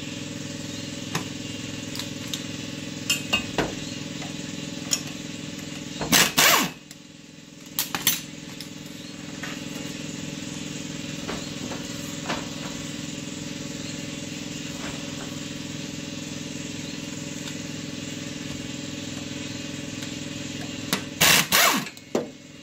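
Cordless impact wrench hammering on bolts in two loud bursts of about half a second to a second, one about six seconds in and one near the end, with a couple of short blips just after the first. Scattered light tool clicks sit over a steady background hum.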